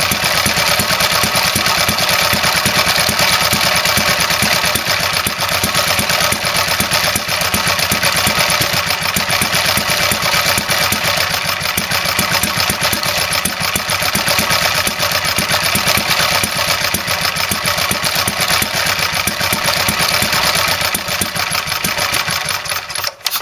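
1930s J.A.P. 500cc single-cylinder four-stroke stationary engine running with a rapid, rough firing beat that sounds more like a two-stroke, a sign of poor running that the owner means to cure with carburettor work. It cuts out just before the end.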